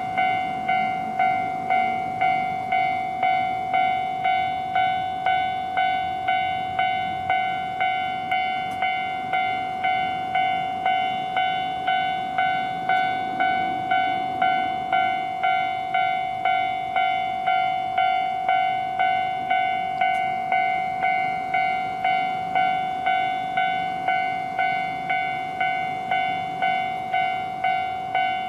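Japanese railway level-crossing warning bell ringing its electronic kan-kan, evenly repeating dings with a ringing tone that never lets up.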